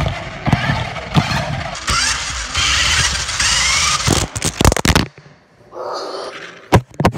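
Remote-control toy car driving with a phone riding on it: a dense rattling and clattering with many sharp clicks, stopping about five seconds in, then a few separate knocks near the end.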